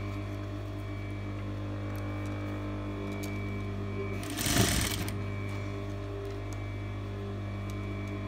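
Sewing machine with a steady motor hum, running a short burst of stitches about four and a half seconds in as piping cord is sewn into fabric under a piping foot.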